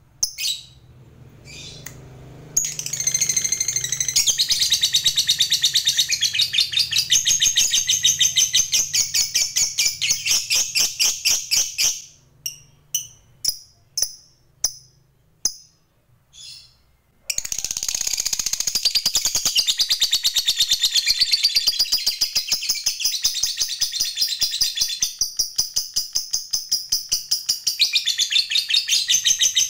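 Lovebird's long rapid chattering trill ('ngekek'): a fast, even run of sharp high chips, broken off for a few seconds about twelve seconds in by single chirps, then picked up again.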